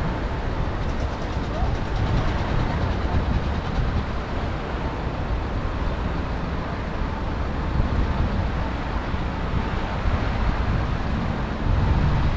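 Steady road and traffic noise of a car driving in city traffic: a low rumble under an even hiss. The rumble grows louder near the end.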